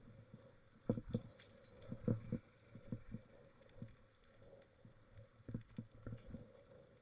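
Mountain bike knocking and rattling over rough ground in irregular thumps, over a faint steady hum.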